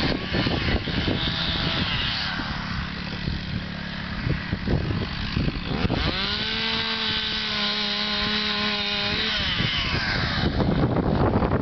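A chainsaw revs up about halfway through, holds a steady high pitch for about three seconds, then drops back. Wind buffets the microphone.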